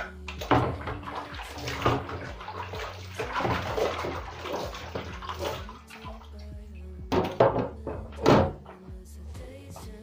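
Water splashing and sloshing as plastic fridge compartments are washed by hand, with several knocks of the plastic parts, two of them loud near the end.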